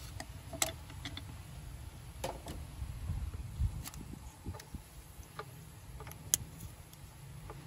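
Scattered sharp clicks and light knocks of plastic wiring-harness connectors being worked loose and unplugged from sensors on an engine's intake manifold, over a low rumble.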